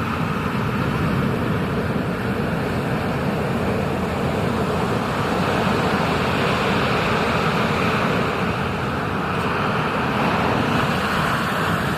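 Steady rush of ocean surf and moving water, with wind on the microphone.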